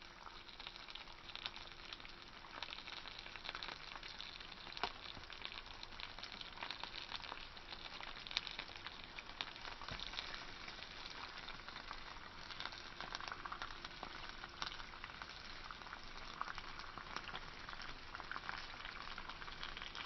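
Lemon pepper fish fillets sizzling on a grill: a steady frying hiss with scattered small crackling pops.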